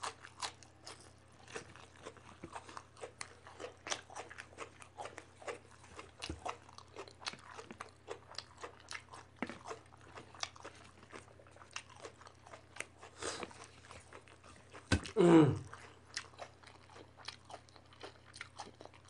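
Close-miked chewing and crunching of raw green chilli and vegetables, with frequent sharp wet mouth clicks. About fifteen seconds in there is one short, loud voiced sound that falls in pitch.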